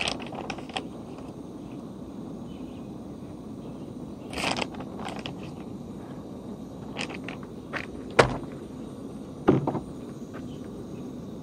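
Gas canister camping stove burning steadily under a metal pan, with the rustle of a plastic bag of frozen vegetables and a few sharp knocks on the pan; the two loudest knocks come near the end.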